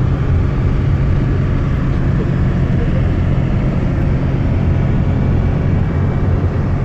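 Minibus engine running with tyre and road noise, heard from inside the cabin while driving on a snowy road: a steady low hum.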